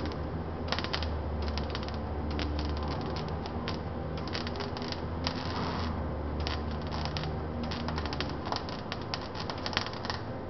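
Arc welding on car body steel: the arc crackles and spits in short, irregular spurts as the welder is triggered on and off, over a steady low hum.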